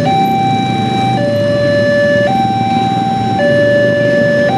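Railway level-crossing warning alarm sounding its two-tone signal, a higher tone and a lower tone taking turns about every second, with the low noise of waiting motorbike traffic underneath. It is the warning that a train is approaching while the barrier is down.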